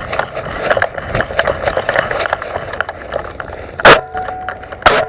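Two sharp, very loud airsoft gun shots about a second apart, near the end, each with a brief faint ring after it. Before them comes a steady run of small crackles and clicks.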